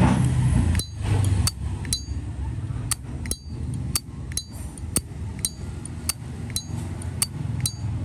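Brass Zippo lighter's hinged lid repeatedly flicked open and snapped shut: a string of sharp metallic clicks about two a second, many of them with a short, bright ringing ping.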